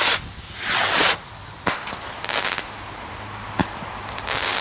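Firework rockets launching with two rising whooshes, followed by two sharp bangs and crackling bursts of stars in the air near the end.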